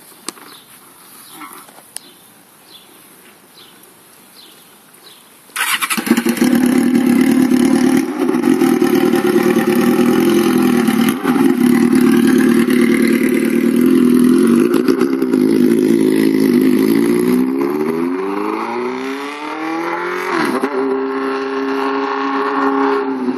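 A 2005 Suzuki GSX-R's inline-four, running with its muffler removed on the open header pipe, starts suddenly about six seconds in and runs loudly. In the last few seconds it pulls away, its pitch rising, dipping once at a gear change and rising again.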